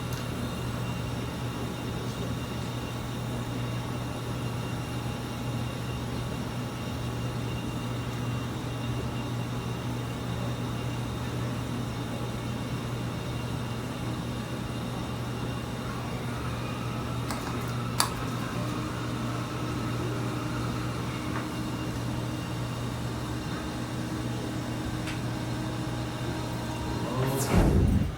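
A steady low machine hum, like a fan or air conditioner running. A single sharp click comes about eighteen seconds in, and a brief louder noise near the end sweeps down in pitch.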